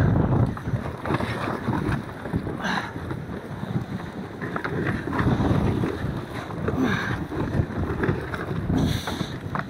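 Wind buffeting the microphone over the rush of water along a sailboat's hull as it runs through large waves. Loudness swells and drops with the waves, with a few brief hissing surges.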